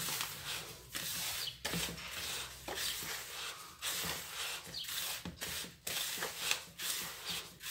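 Hands rubbing coarse semolina against the sides of a plastic bowl, working olive oil into the grains: a repeated grainy rustle, a stroke about every half second.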